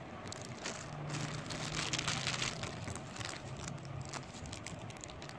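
Clear plastic bags crinkling and rustling as they are handled, a run of quick irregular crackles.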